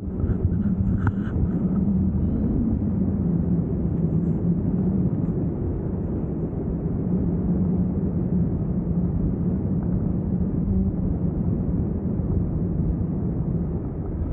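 Airflow rushing over the camera microphone in paraglider flight: a steady, loud low rumble with no break.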